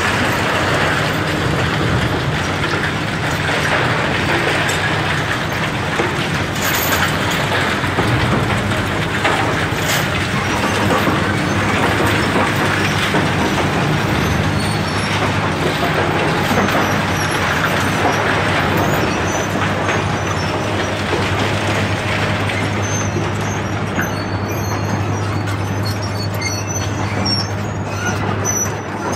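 Heavy demolition excavators' diesel engines running steadily under load, with a low hum and a couple of short knocks in the first half.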